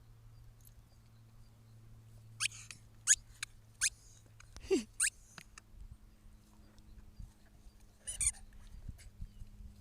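A dog squeezing a rubber squeaky ball in its mouth, the toy letting out short, sharp, high squeaks: a quick run of about five in the middle and one more near the end.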